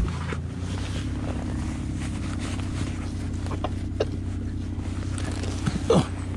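Boat's outboard motor idling steadily, with a few sharp knocks from the mooring rope and boat being handled.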